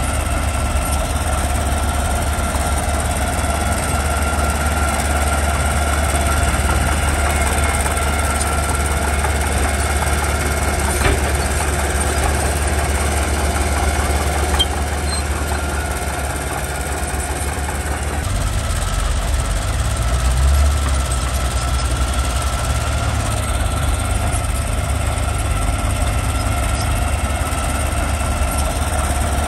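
Mitsubishi BD2G bulldozer's diesel engine running steadily, its deep note shifting about two-thirds of the way through.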